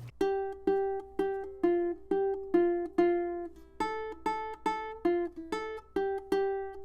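Background music: a plucked ukulele tune, about two notes a second.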